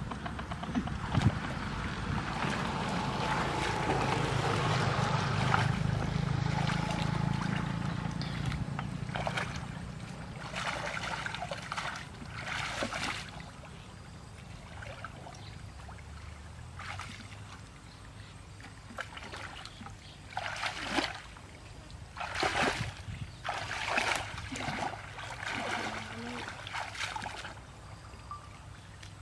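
Muddy shallow water sloshing and splashing as people wade and grope with their hands in it, steady for the first few seconds and then in short, scattered splashes.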